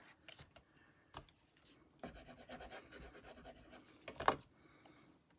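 Cardstock being handled and slid across a craft mat: a few light taps, then a stretch of faint scratchy rubbing from about two seconds in, ending in a sharper paper rustle.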